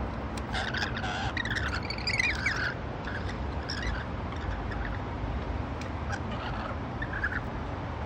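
Rainbow lorikeet calls: a burst of chirps and a short warbling call in the first few seconds, and another brief call near the end, over a steady low rumble.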